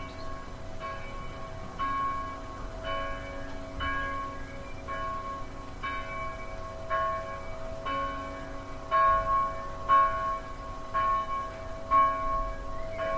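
Church bell ringing, struck about once a second, each stroke ringing on into the next.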